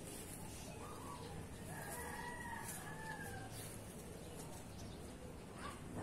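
A bird calling: one drawn-out crowing call that lasts about three seconds, starting about a second in.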